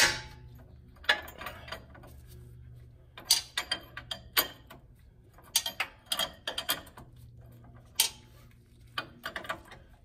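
Hand ratchet wrench clicking in several short bursts as a nut on the Jeep's steering drag link joint is worked loose.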